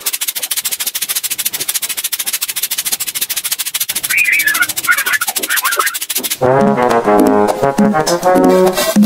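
Edited-in comic sound effects: a fast, even rattle of clicks for about six seconds, with a few high squeaks near the middle, then a trombone-like brass instrument playing a run of notes.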